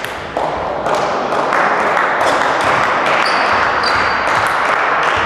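Table tennis ball bouncing repeatedly, a quick series of sharp clicks, over a loud steady wash of hall noise, with two short high squeaks in the middle.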